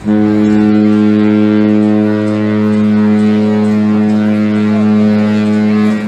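Cruise ship's horn sounding one long, low, steady blast of about six seconds, starting abruptly and cutting off.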